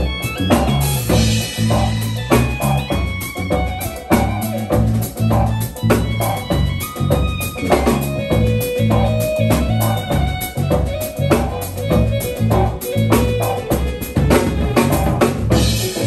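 Live jazz trio playing: a busy electric bass line, a drum kit with kick, snare and cymbals, and keyboards holding chords over them.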